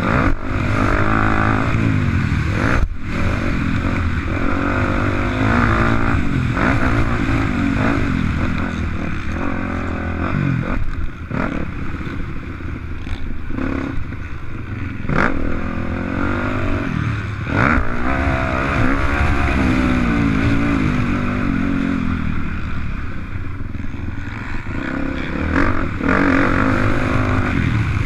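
Dirt bike engine under hard riding, its pitch climbing and dropping again and again as the throttle is worked and gears change, with a rush of wind noise and a few sharp knocks from the bike over the track.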